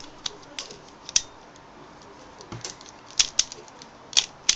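Mofang Jiaoshi Pyraminx being turned by hand: irregular sharp clicks as its layers and tips snap into place, several a second in quick clusters.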